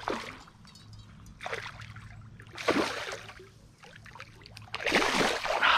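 Creek water splashing in several short bursts, the loudest and longest near the end, as a hooked smallmouth bass is played at the surface close in.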